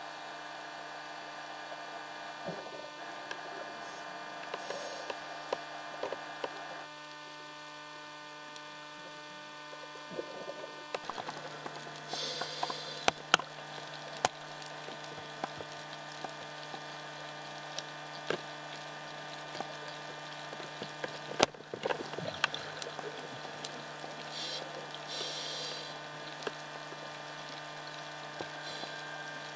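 Underwater recording through a camcorder housing: a steady electrical hum from the camera, with scattered sharp clicks and three hissing bursts about ten seconds apart, typical of a scuba diver's regulator breathing.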